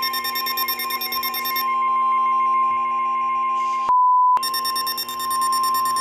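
NOAA Weather Radio warning alarm tone, a loud steady tone of about a thousand hertz blaring from several weather-alert radios at once, with buzzy overtones and a pulsing beep layered in. About four seconds in it narrows for half a second to one clean, louder tone, then carries on. The tone heralds a warning broadcast, here a severe thunderstorm warning.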